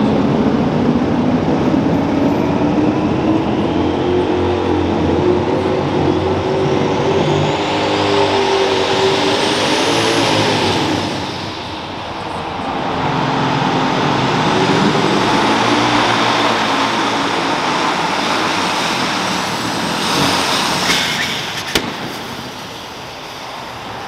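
Pulling tractor's engine running hard and loud, with a high whine that climbs for about ten seconds before the engine drops off. It then builds again and eases near the end, where a single sharp crack is heard.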